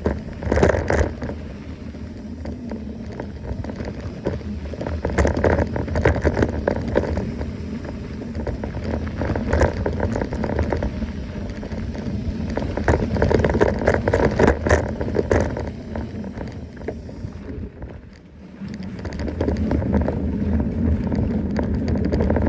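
Mountain bike being ridden along a trail: uneven wind rumble on the microphone, with tyre noise and frequent short rattles and clicks from the bike over bumps.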